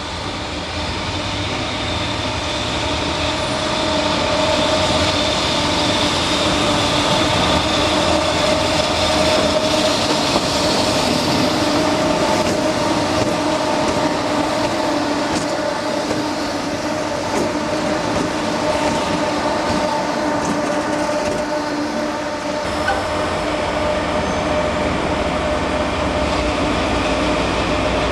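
Electric train running close by: a steady electric hum at several pitches over the wheel and running noise, with the wheels clicking over the rail joints in the middle.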